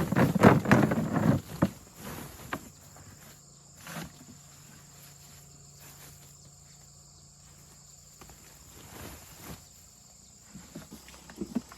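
A steady high insect drone, with a loud burst of rustling and crunching handling noise over the first second or so and a few scattered taps after it.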